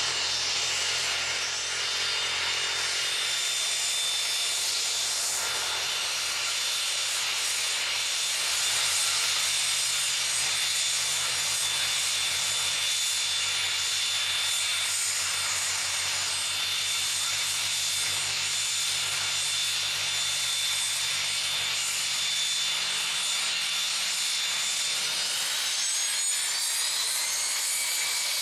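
Hawker 800XP business jet's twin Honeywell TFE731 turbofans whining steadily at low taxi thrust as it rolls past, with a high, even whistle over a rushing hiss. Near the end the whine's pitch rises and then falls.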